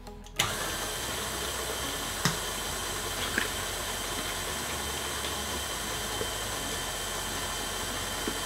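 Electric stand mixer starting up about half a second in and running steadily, its flat beater working an egg into creamed butter and sugar, with a couple of light clicks.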